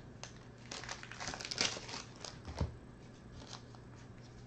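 Plastic crinkling of a bag of card sleeves being opened and handled as sleeves are pulled out, in scattered crackles over about three seconds before it goes faint.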